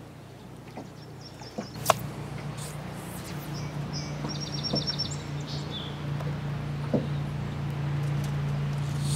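A steady low engine drone grows louder, with a sharp click about two seconds in. A bird gives a short, quick trill of high chirps about four seconds in.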